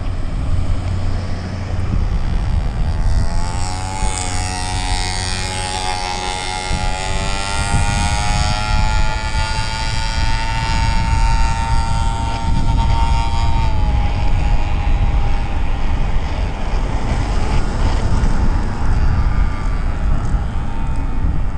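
Electric motor whining under way: its pitch rises from about three seconds in, holds steady, and fades near the middle, over a constant rumble of wind on the microphone and road noise.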